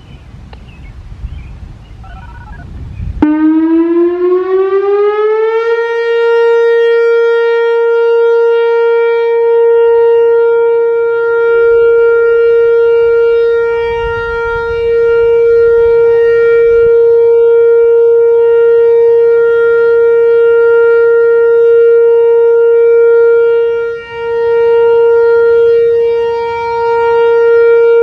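Whelen WPS-4004 electronic outdoor warning siren sounding its weekly test: about three seconds in, a tone cuts in low, glides upward for a couple of seconds, then holds one steady, loud pitch rich in overtones, dipping briefly in loudness a couple of times.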